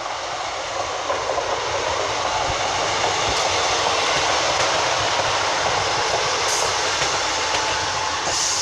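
Class 153 diesel multiple unit running past at close range: a steady rush of engine and wheel-on-rail noise.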